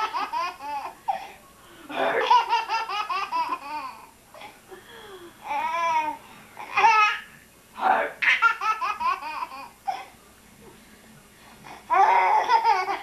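A baby laughing hard in repeated bursts of giggles and belly laughs, with short pauses between them.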